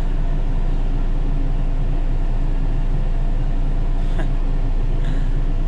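Tractor engine running steadily, a constant low drone.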